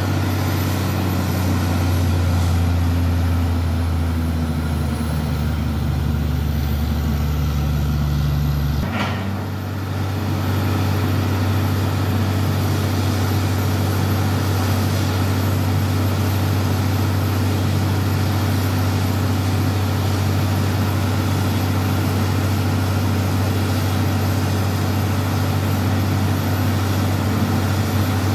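Truck-mounted borewell drilling rig running, its heavy diesel engine giving a steady drone. About nine seconds in, the engine note shifts and the sound dips briefly with a short hiss, then runs steady again.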